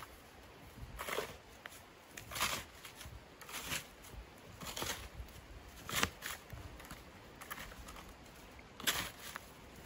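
Small plastic snow shovel digging into snow: a series of separate crunching scoops, roughly one a second, with a longer pause before a last scoop near the end.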